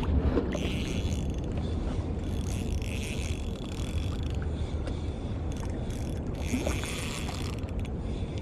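Shimano Stradic Ci4+ 1000 spinning reel working under a hard-fighting fish, coming in bursts of about a second, over a steady low rumble.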